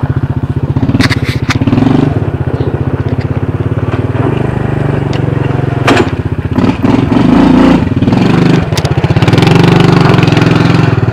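ATV engine running while being ridden, its note shifting with the throttle, with a few sharp knocks and rattles from the machine.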